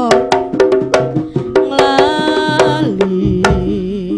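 Live jaranan music: sharp kendang drum strokes over a held melody line, with a low sustained note coming in near the end.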